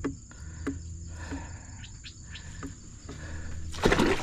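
Insects, crickets by the sound tag, chirring as a steady high thin tone, with a few light knocks and a brief louder rustling burst near the end.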